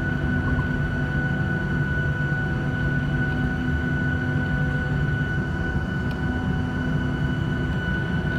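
Boeing 737-800 cabin noise over the wing while taxiing, its CFM56 jet engines at low power: a steady rumble with a constant high-pitched whine, holding level throughout without spooling up.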